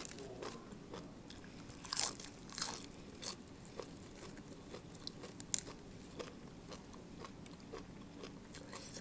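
Close crisp crunching of fresh lettuce and raw papaya salad being eaten, with leaves crackling as they are folded by hand. The sharpest crunches come about two and five and a half seconds in.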